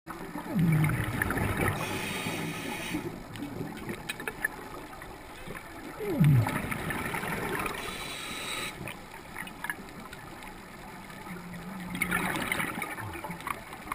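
Scuba breathing heard underwater: a hiss through the regulator on each inhale alternating with a low burble of exhaled bubbles, in slow cycles a few seconds apart.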